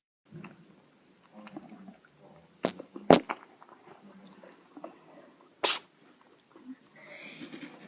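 A cat sneezing: a quick pair of short, sharp sneezes about three seconds in, and another a little before six seconds.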